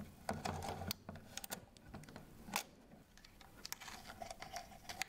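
Soviet FED-5C rangefinder camera being handled, its mechanism giving a quiet run of small irregular clicks, with one louder click about two and a half seconds in.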